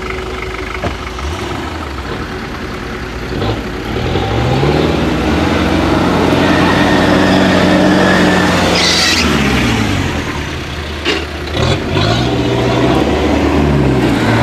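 Off-road 4x4's engine revving as it is driven through mud, its pitch rising, holding and falling several times. A few sharp knocks come about two-thirds of the way in.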